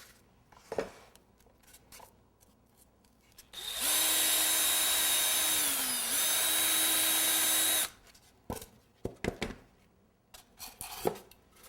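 Electric drill running for about four seconds, boring a hole through the center of a board. Its whine sags in pitch under load about halfway through, breaks for a moment, then comes back up to speed. Short handling knocks come before and after it.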